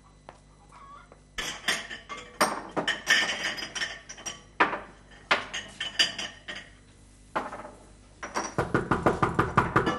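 Crockery clattering as dishes are stacked and put away in a wooden kitchen cabinet: clusters of clinks and knocks, ending in a quick run of knocks.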